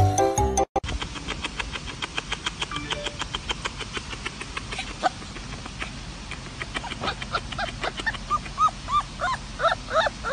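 Puppy whimpering in short, high squeaks, each rising and falling, that come faster toward the end. Under them, for the first half, runs a rapid even ticking. A snatch of music cuts off abruptly near the start.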